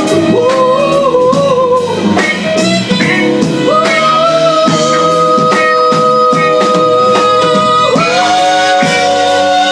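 Live band music with guitar and a steady beat under a melody line that holds one long note for about four seconds in the middle.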